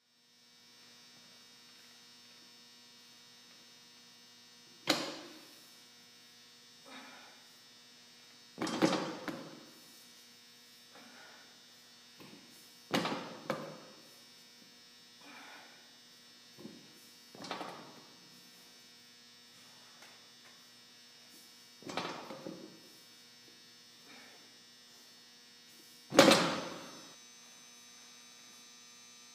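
Loaded barbell set down on the floor over and over during deadlift reps: six loud knocks about four seconds apart, each ringing briefly, with fainter knocks between them. A steady electrical hum runs underneath.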